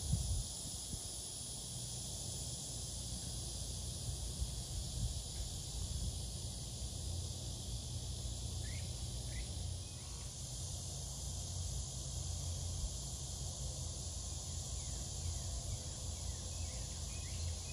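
Steady high buzzing chorus of insects that holds without change, over a low rumble, with a few faint short chirps around the middle and near the end.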